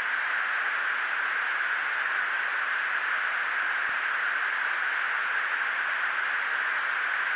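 Steady hiss of a fighter jet's cockpit intercom audio with the channel open and no talking, with one faint click about four seconds in.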